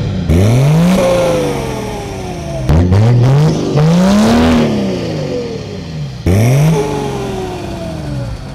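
A car engine revved hard four times, each rev climbing quickly in pitch and then dying away over a second or two.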